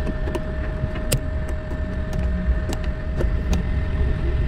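A car's engine and road noise heard from inside the cabin: a steady low rumble with a thin steady whine over it, and a few sharp, irregular clicks.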